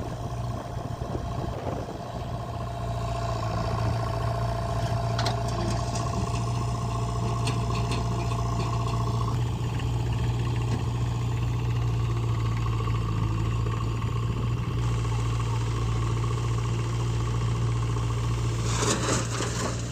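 Heavy diesel engine running steadily at a constant speed, with a few light clicks and a brief louder clatter near the end.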